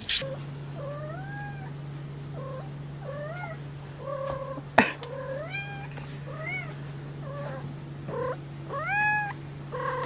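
A female cat yowling over and over, about nine drawn-out calls that rise and fall in pitch: the night-long calling of a cat in heat. A single sharp tap sounds about halfway through, over a steady low hum.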